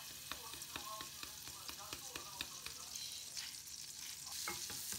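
Food sizzling in a hot frying pan while a utensil stirs it, with frequent irregular clicks and scrapes of the utensil against the pan. The sizzle grows louder about four seconds in.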